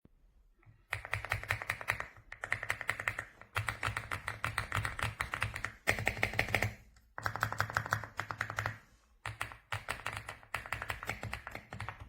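Fast typing on an AULA F75 gasket-mounted mechanical keyboard with Leobog Graywood V3 linear switches and PBT keycaps: rapid keystrokes in runs of one to three seconds, broken by short pauses. Each keystroke has a low thud under the click.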